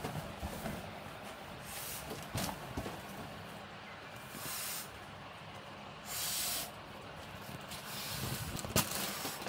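A purple latex balloon being blown up by mouth: three short rushes of breath a couple of seconds apart, with a few sharp clicks, the loudest near the end.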